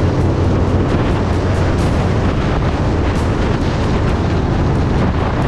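Harley-Davidson V-twin motorcycle engine running steadily at road speed, with wind rushing over the microphone.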